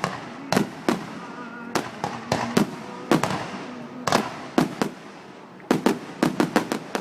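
Fireworks going off in a string of sharp bangs at irregular spacing, coming in a quick rapid run near the end.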